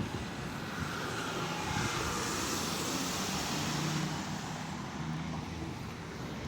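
Road traffic driving past. A delivery van's engine and tyre noise swells as it passes about two to four seconds in, then fades.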